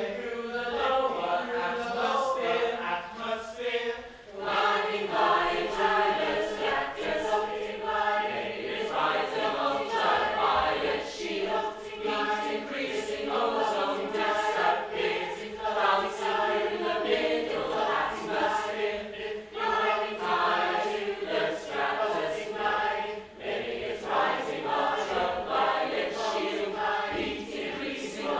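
Unaccompanied choir singing in a rhythmic, chant-like way, many voices together, with a brief drop about four seconds in and another near the end.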